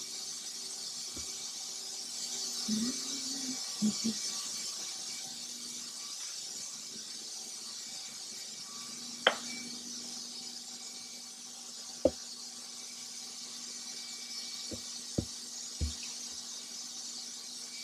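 Hyundai-Kia SKT21LMS dual-spindle CNC lathe running a bar-fed aluminium turning job: a steady high hiss over a faint low hum. In the second half, five short sharp clinks sound at uneven intervals.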